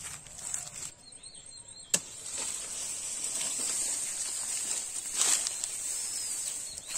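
Outdoor ambience dominated by a steady, high-pitched insect drone. A single sharp click sounds about two seconds in, and a brief rustle of dry leaves underfoot about five seconds in.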